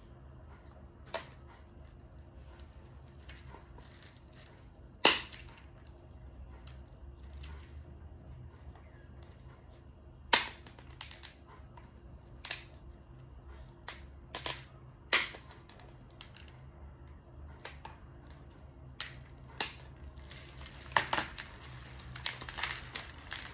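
Pruning shears cutting through a thin clear plastic orchid pot, to free roots grown through its holes: about a dozen sharp snaps a second or several apart, the loudest about five and ten seconds in. Near the end comes a quicker run of smaller plastic crackles.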